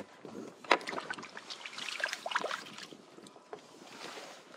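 Water splashing and sloshing beside a kayak hull as a black drum is held in the water by fish grips, with scattered small knocks and one sharp knock under a second in.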